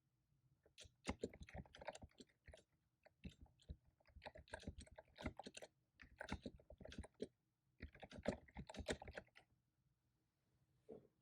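Typing on a computer keyboard: quick runs of keystrokes broken by short pauses, then a couple of softer key taps near the end.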